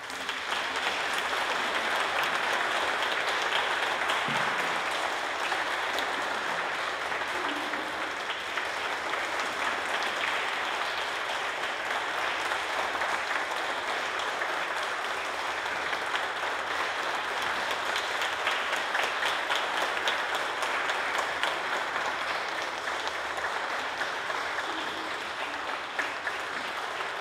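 Concert audience applauding steadily, a long, even round of clapping that eases slightly near the end.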